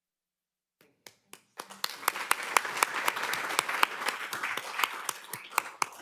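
Audience applauding: a few scattered claps about a second in, then steady applause from many hands, tapering off near the end.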